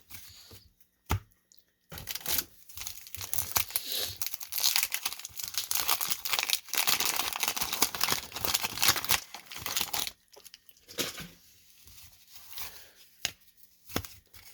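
A 1991 Topps baseball card pack wrapper being torn open and crinkled: a dense crackling run lasting several seconds, with a few light clicks and rustles before and after it.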